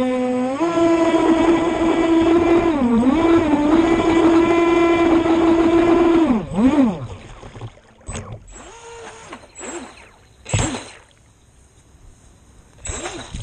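Onboard electric motor of an AquaCraft Minimono RC boat whining at full speed with steady pitch and a brief dip, then winding down and stopping about six to seven seconds in. After that come quieter water sounds and a few short sharp knocks against the hull.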